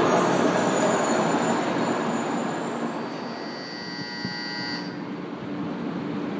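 Shinkansen trains at the platform: the running noise of an N700-series train, fading, then a 500-series Shinkansen pulling in slowly. A high whine starts about three seconds in and cuts off a couple of seconds later as the train comes to a stop, leaving a steady low hum.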